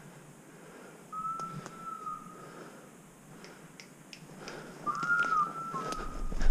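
Long steady whistled notes, one about a second in and another near the end, blown to a hunting dog working woodcock cover, with faint twig and brush clicks. A sharp bang comes at the very end.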